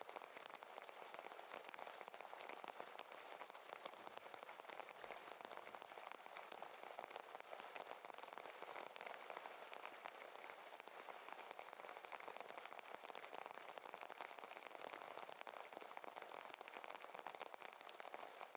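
Faint, steady crackling hiss with no distinct events: low-level background noise.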